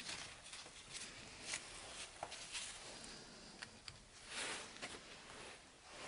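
Faint rustling with scattered light ticks from gloved hands tying lamb's ear leaves onto a small grapevine wreath with string.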